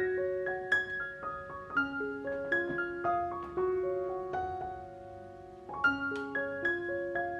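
Background music: a gentle solo piano melody, one note at a time with held notes, one long note fading a little after the middle before the playing picks up again.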